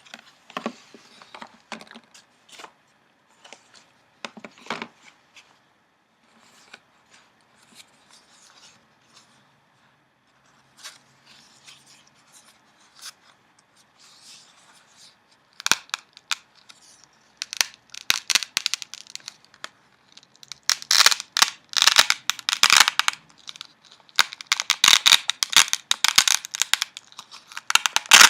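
Newspaper flier pages being handled and flipped, with soft scattered rustles at first, then loud crinkling and crackling of the paper through the second half.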